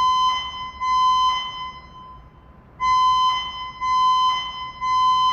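Electronic building evacuation alarm beeping a steady single high tone, about one beep a second in groups of three with a short pause between groups: the three-pulse evacuation signal.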